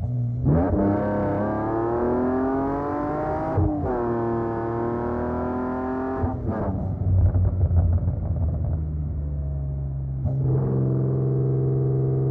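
BMW E46 M3's S54 inline-six through a Supersprint exhaust, accelerating hard: the pitch climbs through one gear, breaks at a quick upshift, and climbs again until the throttle is lifted a little past halfway. A rougher, uneven stretch follows, then the engine pulls steadily again near the end.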